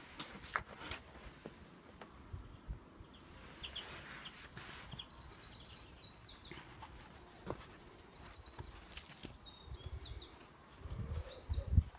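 Small birds chirping and singing in the background, with rapid high trills about five and seven and a half seconds in. Faint handling clicks and a few low bumps near the end.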